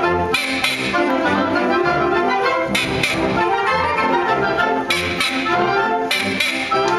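A concert wind band playing, with brass and woodwinds sounding together. Bright percussion strokes come about every one to two seconds.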